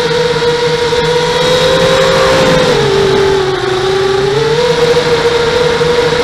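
A 5-inch quadcopter's four brushless motors and propellers whining in flight, as a close cluster of steady tones. The pitch sags for a second or two about halfway through as the throttle eases, then climbs back.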